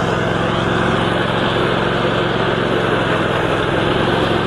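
Ride-on lawn mower engine running steadily at an even pitch as it cuts grass.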